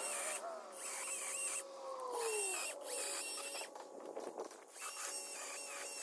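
Distant small engine whose pitch glides up and down, falling off about two seconds in, then runs steadily. Repeated high chirps and a pulsing high hiss sound over it.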